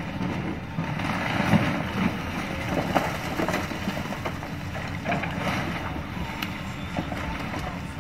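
Excavator demolishing a house: the machine's engine running under repeated sharp cracks and crashes of breaking timber and falling debris.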